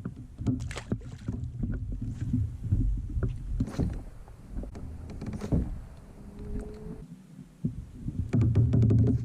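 Kayak on the water: scattered knocks and clicks of gear against the hull over a low rumble, which grows louder near the end.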